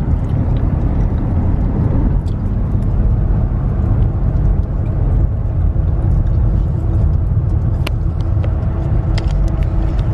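Steady low rumble of road and engine noise inside a moving car, with a few light clicks.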